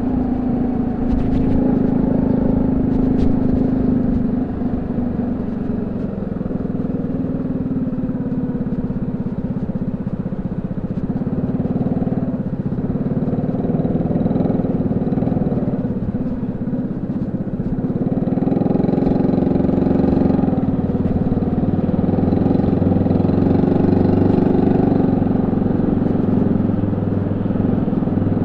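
Honda C70's small four-stroke single-cylinder engine running steadily through a banana-style exhaust. Its engine speed eases off a few seconds in and picks up again about eighteen seconds in.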